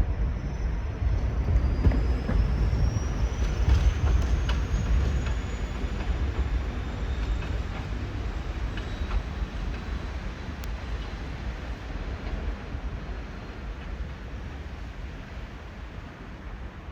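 New York City subway train running away from the station: a low rumble with a few sharp wheel clicks over rail joints and a faint whine rising in pitch, fading steadily as it goes.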